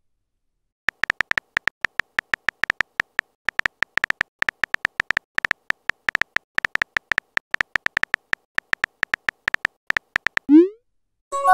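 Synthetic keyboard typing clicks from a texting-story app, short pitched ticks about six a second, as a message is typed out letter by letter. Near the end comes a quick rising swoop as the message is sent, then a short chime.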